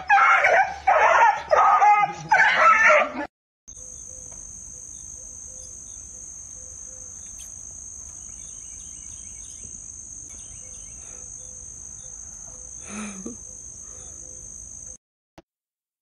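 A dog howling and yelping in four or five short bending calls for about three seconds, then cutting off. After that, a steady high-pitched insect drone over a soft hiss, with one brief soft sound near the end.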